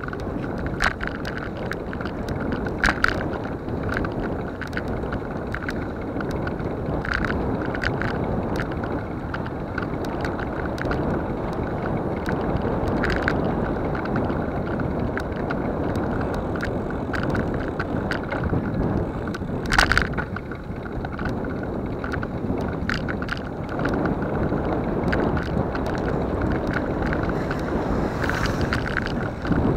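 Wind and road rumble on a moving camera's microphone along a concrete road, with scattered sharp clicks and knocks from the mount jolting over bumps; the loudest knock comes about two-thirds of the way in.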